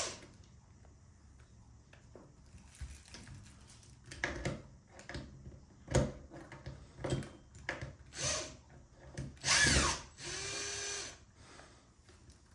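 Power drill backing screws out of a steering wheel's rear cover in short bursts: a brief run about eight seconds in, then a louder run near ten seconds that settles into a steady whine for about a second. Light clicks and knocks of handling come between the runs.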